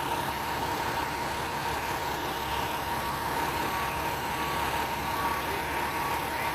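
Fire trucks idling with a steady, even engine run, and a thin steady tone running through it.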